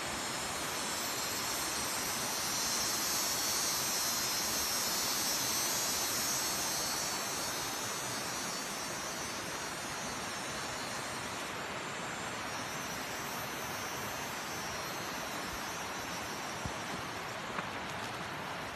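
Steady roar of the Blang Kolam waterfall, a drop of about 50 metres. It is an even rushing of falling water with a brighter hiss over the first several seconds that then eases, and a couple of small ticks near the end.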